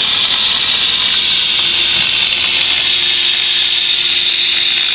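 Oxy-fuel cutting torch on a track-mounted automatic cutting machine giving a loud, steady hiss as it cuts steel. A faint steady hum joins it about one and a half seconds in.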